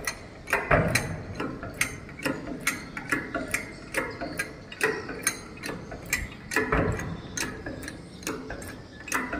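Hydraulic bottle jack being hand-pumped to press a steel plate flat: steady, rapid mechanical clicking, about three clicks a second, with a couple of heavier knocks.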